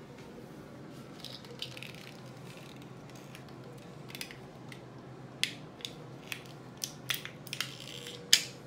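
Plastic toy packaging crinkling and crackling as it is unwrapped by hand, then a run of sharp plastic clicks and snaps in the second half, the loudest near the end. A steady low hum runs underneath.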